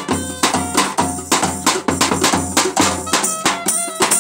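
Live folk dance music: a clarinet plays a held, ornamented melody over a hand-beaten nagara drum and a large stick-beaten daul bass drum keeping a fast, steady beat. The deep bass drum thumps drop out near the end.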